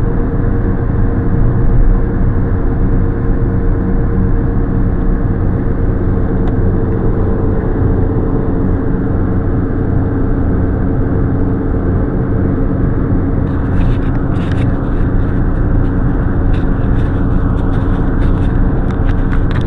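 Steady engine and road noise inside a car driving at motorway speed, with a constant low hum. From about two-thirds of the way through, scattered light clicks and rattles come through the noise.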